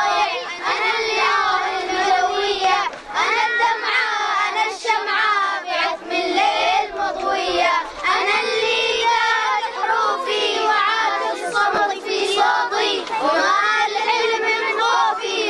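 A group of boys singing a song together, many young voices at once.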